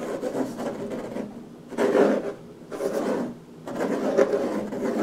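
Fingers scratching and rubbing on a wooden tabletop in a run of uneven rasping strokes, about one a second.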